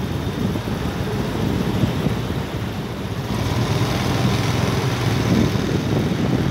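Wind buffeting the phone's microphone, a steady low rumble with irregular flutter, getting a little brighter about three seconds in.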